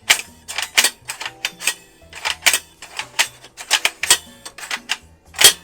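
Irregular hard clicks and clacks of an airsoft rifle's plastic body and parts being handled, about two or three a second, the loudest near the end. Quiet background music underneath.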